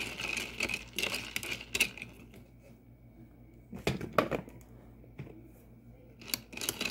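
Small spoon stirring in a toy cooking pot, making a quick run of light clicks and scrapes for about two seconds. Scattered sharp clicks and knocks against the pot follow later.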